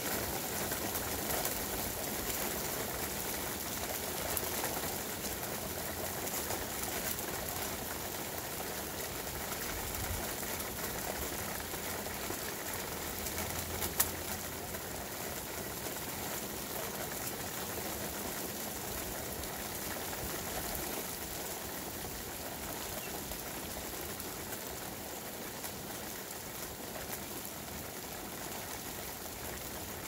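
Steady rain falling on a street and lawns, with birds calling through it. One sharp click about 14 seconds in.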